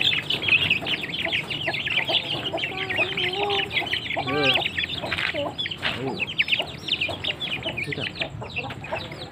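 A cage of young chickens peeping constantly, many short, high, falling cheeps overlapping one another.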